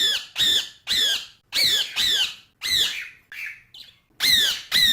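Parrot squawking over and over, about two harsh calls a second, each dropping in pitch, with a short softer lull a little past halfway.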